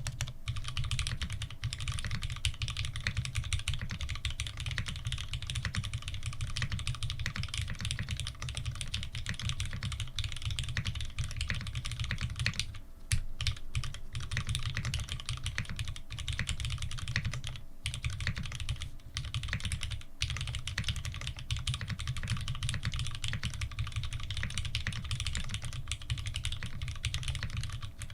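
Continuous fast typing on an F2-84 mechanical keyboard with lubed Cherry Retooled Black linear switches and GMK keycaps: a dense stream of key clacks, broken by a few short pauses around the middle.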